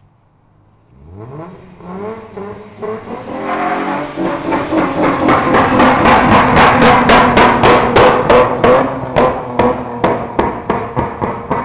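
Mazda MX-3 engine revving hard in a burnout, climbing in pitch from low revs to full revs. At high revs the sound pulses evenly, about three times a second.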